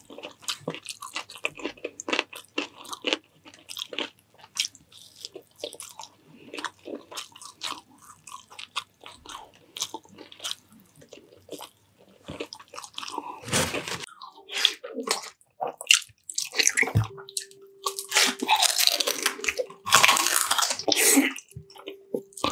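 A person chewing and crunching food close to the microphone: many quick crunches and mouth clicks. There are a few louder, longer noisy stretches in the second half.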